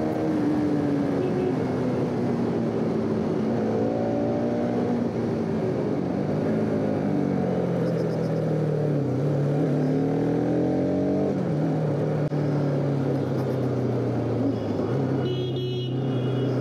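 Bajaj Pulsar RS200's single-cylinder engine running under the rider while riding at low speed, its revs rising and falling with the throttle, with a sudden drop about eleven seconds in. A horn beeps briefly near the end.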